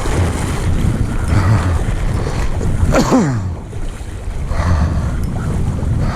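Wind rumbling on the microphone over the rush of creek water. About three seconds in there is one short cry that falls in pitch.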